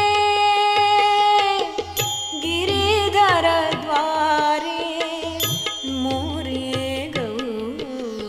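Carnatic music: a long held note gives way, about a second and a half in, to an ornamented melody with sliding, wavering pitch, over steady low drum beats.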